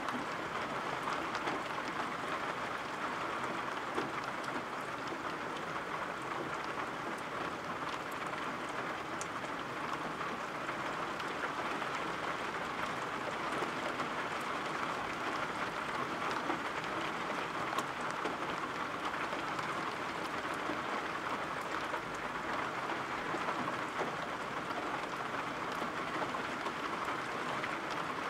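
Steady rainfall: an even, unbroken hiss of rain with scattered faint drop ticks.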